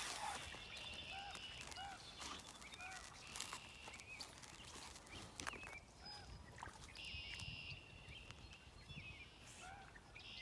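Red-winged blackbirds singing: a buzzy trilled song ending of about a second, heard three times, with short repeated call notes in between.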